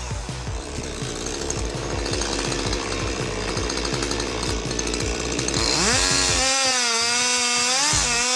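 Machinery working under background music; about six seconds in, an engine revs up quickly and holds at a high, slightly wavering pitch.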